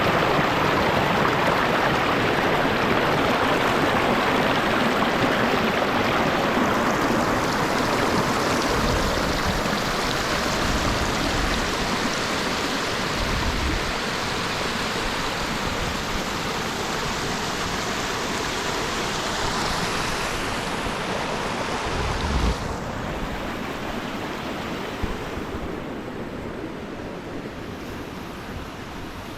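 Rushing water of a waterfall and its stream, a steady, even rush that grows gradually fainter in the last third. About two-thirds of the way through there is a brief low bump.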